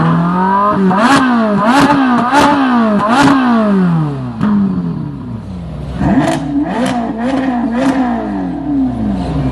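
Ferrari sports car engines revved in quick blips, the pitch rising and falling about five times, dropping back, then another run of blips from about six seconds in, with sharp cracks among the revs.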